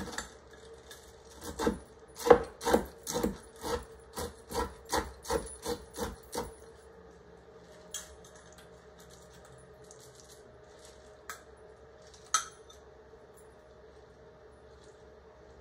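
A utensil scraping buttered, crushed corn flakes about in a dish as a casserole topping, in rhythmic strokes about two a second for some five seconds. Then only a faint steady hum with a few light clicks.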